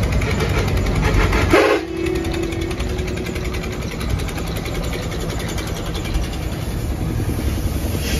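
Bus engine running at idle, heard from inside the bus. About a second and a half in, a short burst of noise is followed by a steady tone held for about two seconds.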